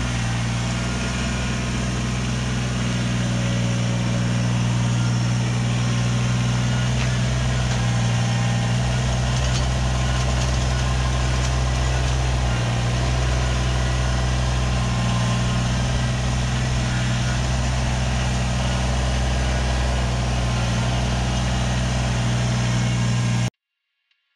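Diesel engine of compact earthmoving equipment running steadily at a constant speed, then cutting off suddenly near the end.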